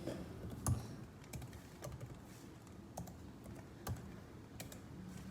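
Light, irregular key clicks of typing on a MacBook Air keyboard, with one sharper click under a second in and another just before four seconds.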